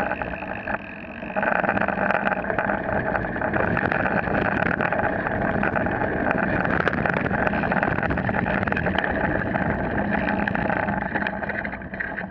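Mountain bike rolling down a dirt and gravel trail, heard from a camera mounted on the bike: steady tyre noise with many small clicks and rattles from the rough ground. It dips briefly about a second in, then carries on steadily.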